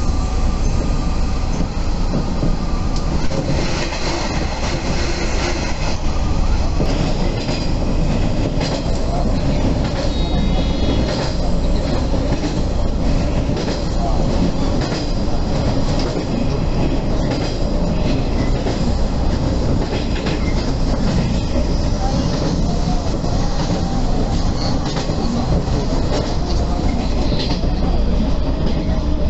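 JR West 115 series electric train heard from inside while running at speed: a steady rumble of wheels and traction motors with the irregular clickety-clack of rail joints, and a brief high wheel squeal about ten seconds in.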